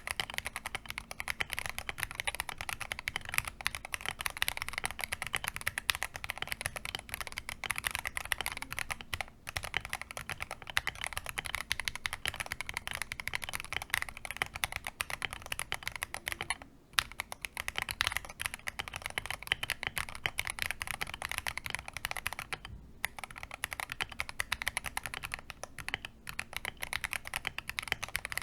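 Fast, continuous typing on a modded Akko MOD005 gasket-mounted mechanical keyboard: dense keystroke clacks with a few brief pauses, the longest about two-thirds of the way in.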